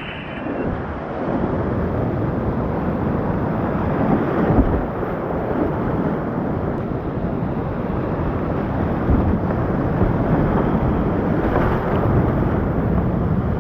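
Loud, steady rush of creek whitewater pouring through a rapid, heard close up from a whitewater kayak running it.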